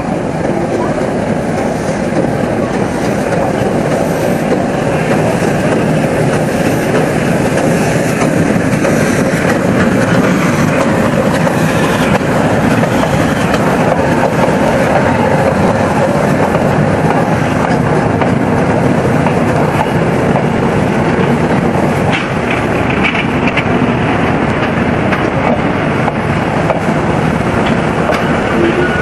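A train running on the rails, a loud steady rolling noise that holds throughout.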